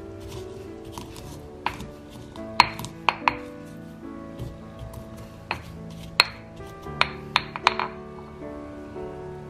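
Stone pestle pounding and crushing peanuts in a stone mortar: about ten sharp, irregular knocks of stone on stone through the nuts, stopping about eight seconds in. Soft background music plays underneath.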